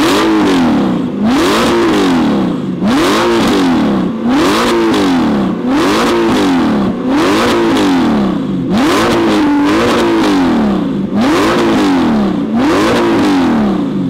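Audi R8 V10 with an Fi Exhaust system, revved repeatedly while standing still. It gives about ten rev blips, each rising in pitch and falling back, roughly one every second and a half.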